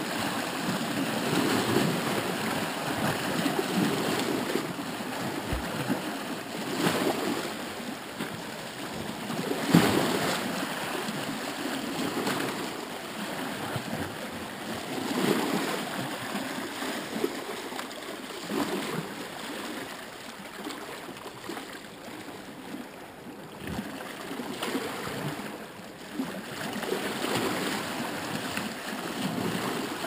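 Small ocean waves lapping and washing at the water's edge, swelling and easing in irregular surges every few seconds.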